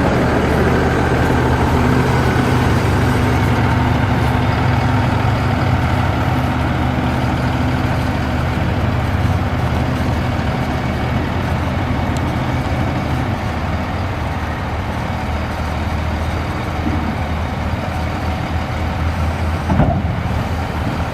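Paccar PX7 inline-six diesel engine of a Kenworth T270 medium-duty truck running steadily, easing off slightly partway through, with a brief louder sound near the end.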